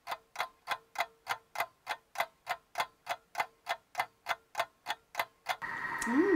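Ticking-clock sound effect marking a wait, about three ticks a second with dead silence between them. It stops shortly before the end, when room sound returns with a short sound that rises and falls in pitch.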